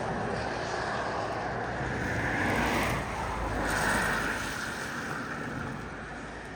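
Steady rushing noise, swelling twice in the middle and easing off toward the end.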